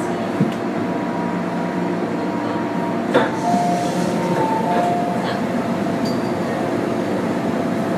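MTR modernised M-train (Metro-Cammell EMU) running, heard inside the passenger car: a steady rumble of wheels and running gear with several steady motor tones. A small click about half a second in, a sharper knock near three seconds, and a short stepping tone just after it.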